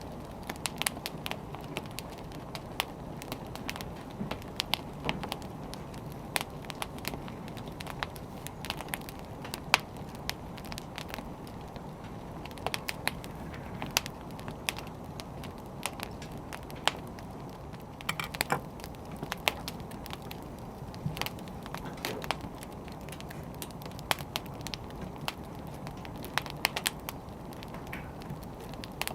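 Wood fire burning: a steady low rumble of flames with irregular sharp crackles and pops from the burning firewood.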